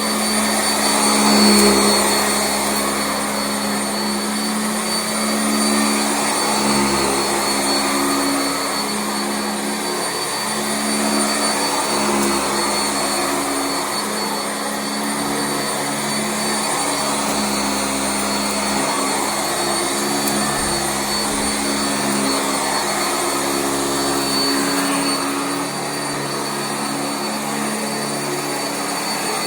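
Sanitaire SC679J commercial upright vacuum running steadily on carpet, a continuous motor hum over the rush of airflow, with slight swells in level as it is worked.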